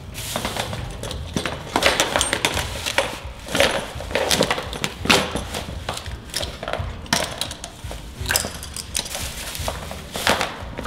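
Hard objects clattering and knocking as clutter is handled and moved around: an irregular run of clacks and thuds, some sharp and loud.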